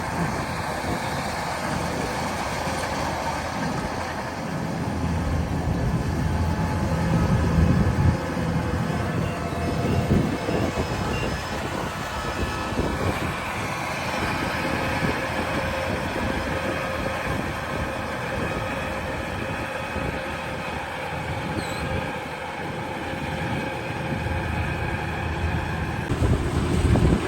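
Kubota DC-108X combine harvester running: a steady mechanical din of diesel engine and machinery, swelling louder for a few seconds about a fifth of the way in and again near the end.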